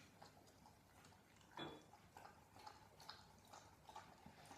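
Near silence: room tone with a few faint scattered clicks, and one brief faint sound about one and a half seconds in.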